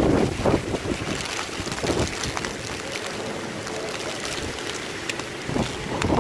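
Typhoon wind gusting hard with driving rain hissing, and gusts buffeting the microphone in repeated rumbling surges, strongest at the start and again near the end.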